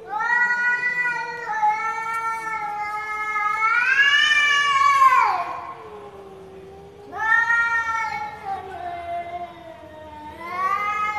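Two domestic cats caterwauling at each other in a face-off before a fight: long, wavering threat yowls, the first rising in pitch and growing louder before breaking off about five seconds in, then fresh yowls about seven seconds in and near the end, with a lower drawn-out moan beneath.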